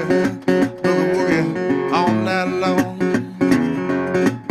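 Background song: strummed acoustic guitar with a singing voice.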